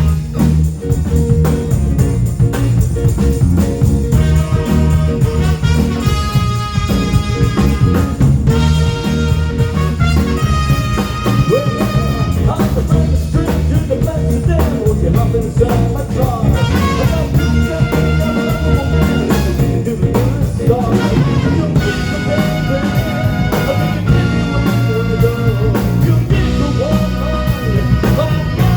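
Loud music with a steady beat, sung and played on pitched instruments.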